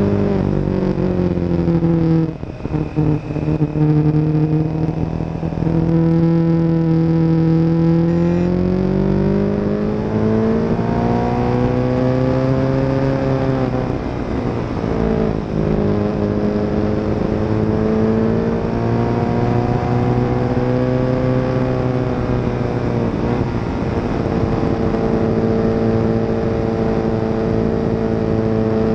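Motorcycle engine running at road speed on a twisty mountain road, its pitch slowly rising and falling as the throttle opens and closes through the bends. The level drops briefly and choppily about two seconds in.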